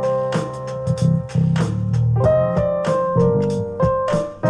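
Piano-led music playing over hi-fi speakers driven by a small Fosi amplifier, sustained chords with sharp note attacks. The reviewer judges the sound good but with some 'fog'.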